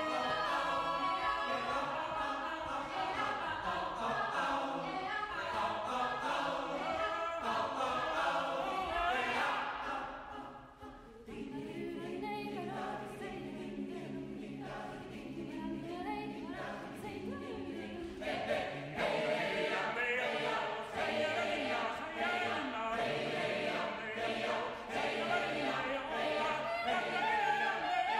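A choir singing, with a brief drop in level about ten seconds in, then long held chords that swell louder a few seconds later.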